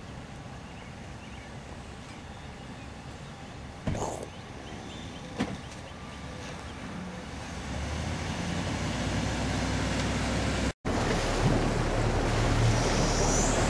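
Quiet outdoor background with two sharp knocks about four and five seconds in, then an engine's low drone builds. After an abrupt break, a boat motor runs underway, with wind on the microphone and water rushing past the hull.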